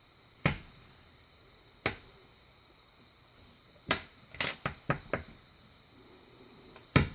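Small metal lock parts being handled on a hard work surface: about eight light, sharp clicks at irregular intervals, with a quick cluster of five about four seconds in.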